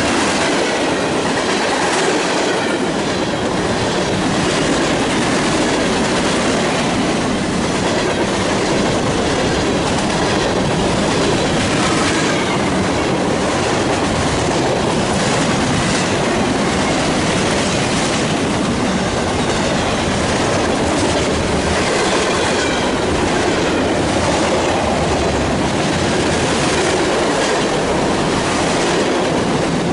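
Mixed freight train cars (tank cars, hoppers, boxcars) rolling past close by at speed: a steady loud rumble and clatter of steel wheels on rail, with repeated clacks as the wheelsets go by.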